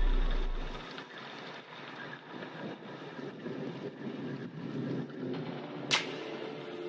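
Background music fades out within the first second, leaving the uneven low noise of a Korean barbecue meal with faint ticks. One sharp click comes near the end.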